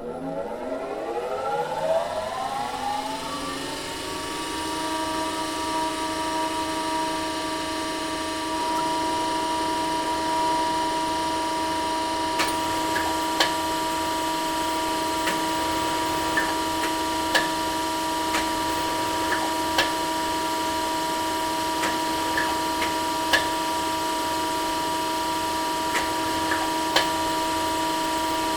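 Industrial cutting machine's motor spinning up with a rising whine over the first few seconds, then running at a steady pitch. From about halfway, sharp ticks sound irregularly, roughly once a second.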